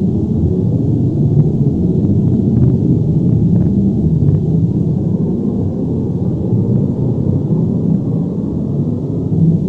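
Earthquake or avalanche rumble sound effect: a deep, steady, continuous rumble, with a few faint ticks in its first half.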